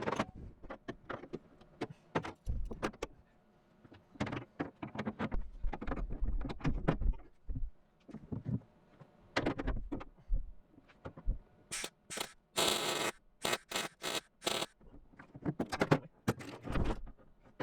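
Irregular metallic knocks, clinks and scrapes, then a run of short crackling hiss bursts from about 12 to 15 seconds in, typical of MIG tack welds joining a sheet-metal tail pan to a quarter-panel flange.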